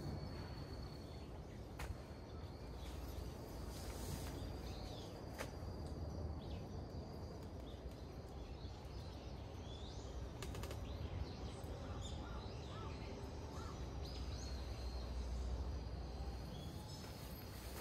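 Woodland ambience: birds calling in short chirps over a low, steady rumble. A steady high insect trill stops about a second in.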